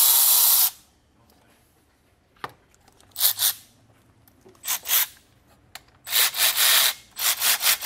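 Hand tools working on the belt tensioner of a BMW E36 M3's engine. A hiss stops within the first second, a single tap follows, then short rasping strokes come quicker and closer together near the end.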